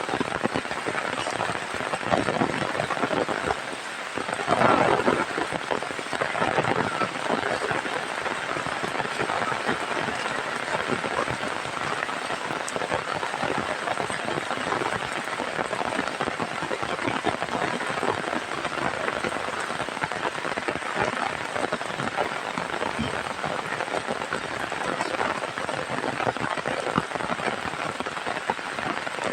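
Heavy rain falling steadily, a dense patter of drops striking surfaces, with a louder surge about five seconds in.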